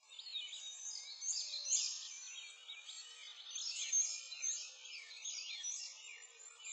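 A chorus of small birds chirping, with many quick, overlapping high calls that rise and fall in pitch.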